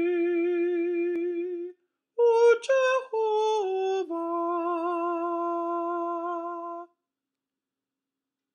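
A single alto voice sings a slow choral line with vibrato. It holds a long note, breaks off briefly about two seconds in, steps down through a few short notes on 'oo-Je-ho-vah', then holds another long note, stopping about seven seconds in.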